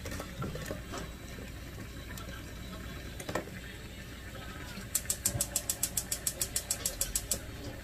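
Gas stove's spark igniter clicking rapidly, about eight sharp ticks a second, for a little over two seconds starting about five seconds in, as a burner knob is held to light a burner.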